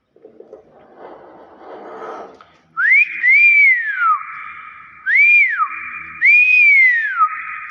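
Hill myna whistling: a run of four loud, clear whistles, each rising then falling in pitch, starting about three seconds in after some low, quiet chatter.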